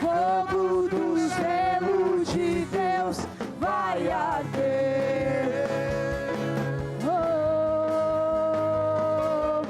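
Live worship band music with a singer: several sung phrases that bend in pitch, then a long held note starting about seven seconds in.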